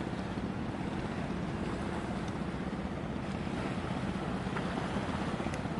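Steady riverside ambience of wind on the microphone and small waves on a wide river, a low even rumble with no sudden sounds.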